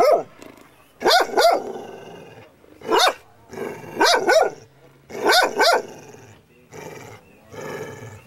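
A dog barking repeatedly, often two barks in quick succession, about eight loud barks in six seconds, then a few quieter ones near the end.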